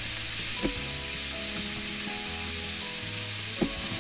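Steak browning in a frying pan, a steady sizzle, with the knife tapping the plate twice as a green pepper is sliced.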